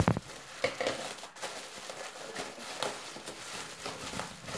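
A thump right at the start, then scattered rustling, crinkling and clicking as a plastic mailer package is handled and opened.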